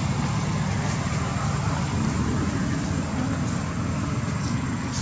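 Steady low rumble of outdoor background noise, with a thin high whine above it and a couple of faint short chirps near the end.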